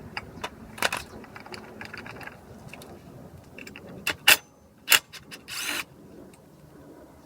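Metal tools and motorcycle drive-system parts clinking and clattering as they are handled during disassembly, with two sharp loud clicks about four and five seconds in and a short scrape just after.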